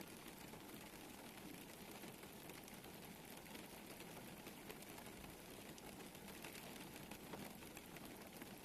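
Faint steady rain: a soft hiss sprinkled with many small drop ticks.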